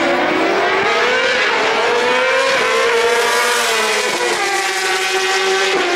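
Two inline-four superbikes launching off a drag-strip start line at full throttle. The engines rise in pitch and drop back at each upshift, about two and a half seconds in, again around four seconds, and near the end, as they pull away up the strip.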